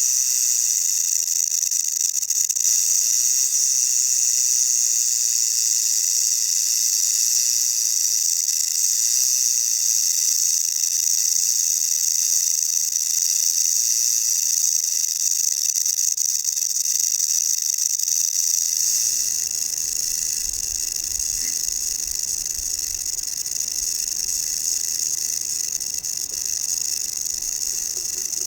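South American rattlesnake (Crotalus durissus) shaking its tail rattle in a continuous high buzz, the defensive warning of an agitated snake. About two-thirds of the way through, a low rumbling noise joins underneath.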